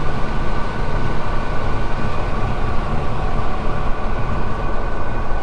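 Gleaner S77 combine running steadily while harvesting corn, heard from inside the cab: a low rumble with a steady high whine over it.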